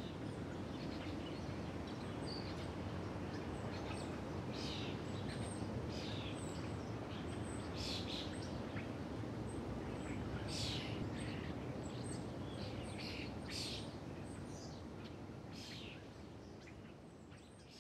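Birds chirping in short, irregular calls over a steady background hiss of outdoor ambience, fading out over the last few seconds.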